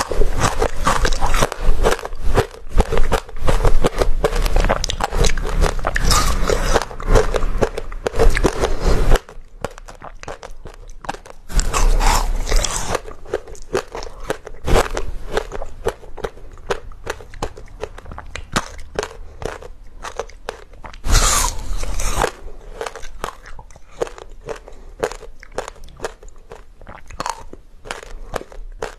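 Close-miked bites and crunching chews of frozen basil-seed ice. Dense, loud crunching for about the first nine seconds, then quieter crackling chews broken by fresh bites about twelve seconds in and again around twenty-one seconds.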